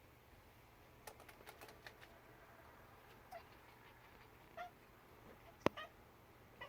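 Kittens chirping, the short chattering calls cats make at birds: a few brief chirps spread apart. A quick run of faint clicks comes about a second in, and a single sharp click, the loudest sound, comes near the end.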